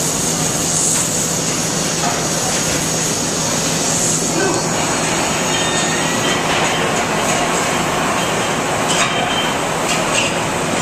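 Welding arc running steadily, a continuous crackling hiss over a faint low hum.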